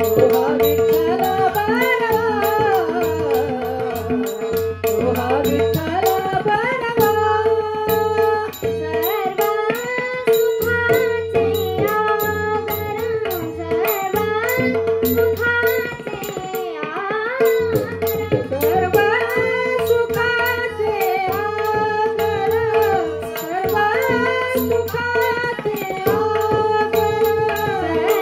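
Marathi devotional song: singing over a steady held drone note, with a tabla keeping a regular rhythm.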